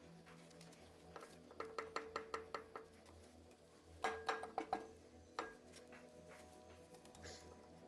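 Metal clinks and taps from hand tools working on a disassembled diesel engine: a quick run of about eight clicks, then a louder cluster with a brief metallic ring, and one last click.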